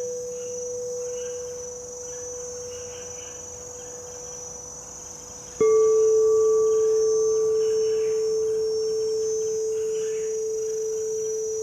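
Singing bowls ringing: one bowl's tone fades away over the first half, then a bowl is struck about halfway through and rings on at a slightly lower pitch with a higher overtone above it, slowly decaying.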